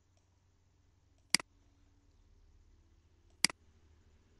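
Two sharp single clicks of a computer mouse, about two seconds apart, over faint room tone.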